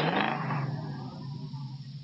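A car's engine roar from a cartoon car stunt dies away over about a second and a half, leaving a low steady hum.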